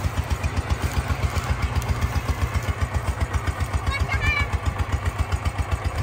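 Engine of the water pump draining the pond, running steadily with an even low beat of about six to seven pulses a second.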